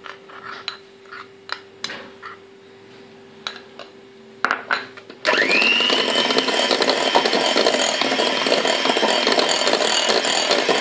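A spoon clinks a few times against a small glass bowl of dissolved coffee. About five seconds in, an electric hand mixer switches on and runs steadily on low speed: its whine rises quickly to a steady pitch as the beaters churn through cake batter.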